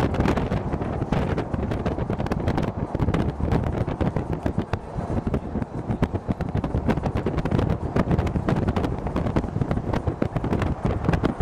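Wind buffeting the camera's microphone: a continuous low rumble broken by rapid crackling gusts.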